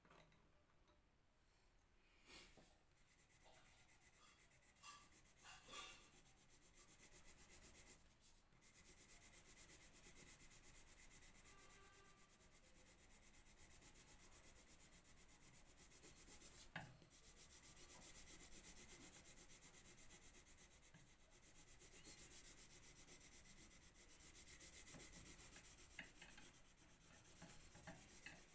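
Colour pencil scratching back and forth on paper in quick, faint strokes as an area is shaded in, starting a couple of seconds in, with a brief pause and one short knock midway.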